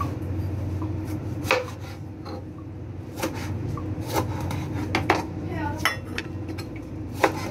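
Kitchen utensils knocking during food preparation: irregular sharp knocks roughly a second apart, with a low steady hum underneath.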